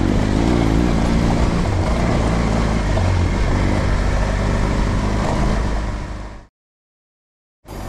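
Motorcycle engine running under way, with a steady rushing noise over it; it fades out about six seconds in, then a second of silence and music starts near the end.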